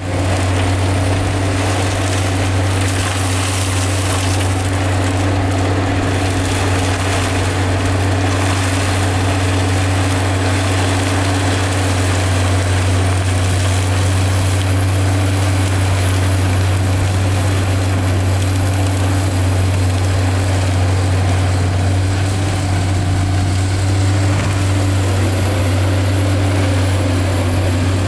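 PRINOTH AHWI Raptor 800 tracked forestry mulcher, with its 640 hp engine, working under load: the front mulching rotor grinds stumps and woody debris into the soil. It makes a loud, steady, deep drone.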